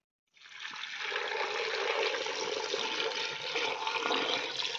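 Water poured in a steady stream into an aluminium pot over pieces of smoked pork, dried chillies and spices, splashing as the pot fills; the pour begins about half a second in.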